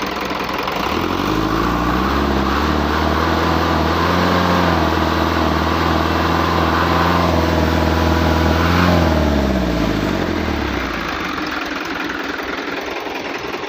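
Hino truck diesel engine revved up from idle about a second in, held at raised revs for several seconds, then let fall back to idle, run to let its noise problem be heard.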